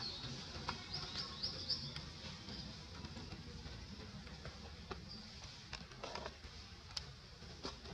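Small birds giving a few short, high chirps in quick succession about a second in and once more near the middle, over a quiet steady background with a few faint clicks.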